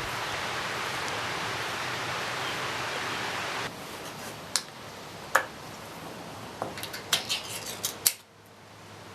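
Steady rustle of wind in the trees, then, after an abrupt change, a handful of sharp clicks and clinks from lunch food and utensils being handled, with a quick cluster of them near the end.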